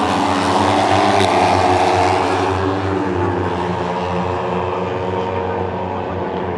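A group of J-GP3 racing motorcycles, 250cc four-stroke singles, running past together with several engine notes at once. The sound is loudest in the first two seconds or so, then slowly fades.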